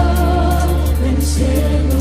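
Worship song with singing over a steady bass and band: a sung note held for about a second, then a new vocal line entering near the end.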